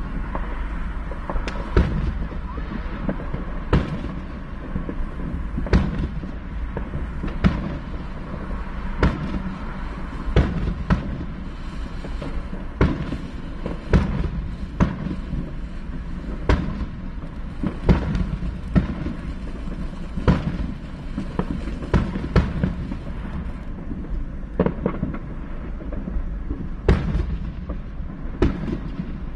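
Aerial fireworks bursting, a string of sharp bangs and pops at irregular intervals, about one every second or two, heard from inside a car.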